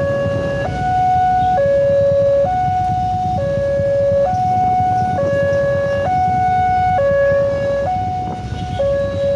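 Railway level-crossing warning alarm sounding as the barrier is down: an electronic two-tone signal that alternates between a lower and a higher tone, each held just under a second. A low rumble of waiting motorbike traffic runs underneath.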